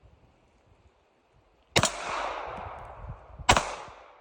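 Two pistol shots about a second and three-quarters apart, fired at steel targets. The first is trailed by a long ringing decay.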